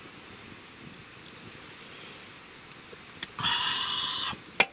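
Faint campfire crackle with a few light clicks, then a breathy exhale of about a second after a drink of beer, and a sharp knock near the end as the aluminium can is set down.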